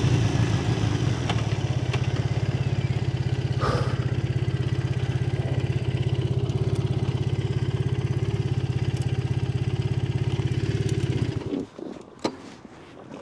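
2010 Triumph Bonneville's 865 cc parallel-twin engine running with an even pulse as the bike rolls up slowly and stops, then idling, and switched off about eleven and a half seconds in. A few light clicks follow.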